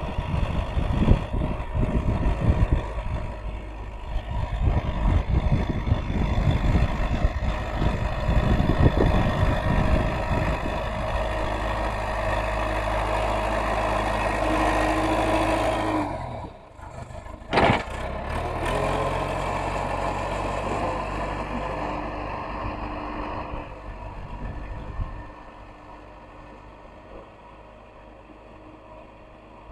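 Heavy diesel engine of an excavator working, with clattering knocks over the first ten seconds. There is a brief drop and then a short loud burst a little past halfway, and the engine runs quieter near the end.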